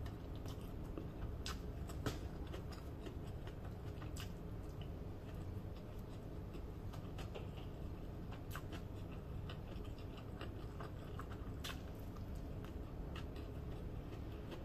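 Quiet chewing of fried rice eaten by hand, with scattered faint mouth clicks over a steady low room hum.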